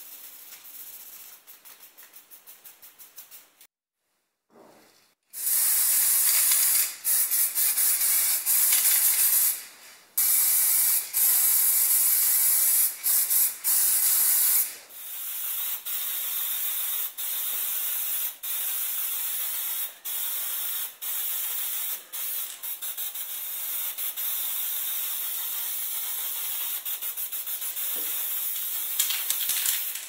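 Spray paint hissing out of the nozzle in a long run of sprays with short breaks, coating a plastic part; louder for the first ten seconds or so, then quieter with brief breaks about every second. At the start, a few seconds of quick hand-sanding strokes with a sanding block on plastic.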